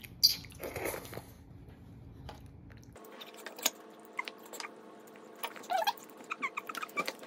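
A child slurps noodles from a bowl, one loud slurp about a second long near the start. Later come a few sharp clicks of a fork against a ceramic plate.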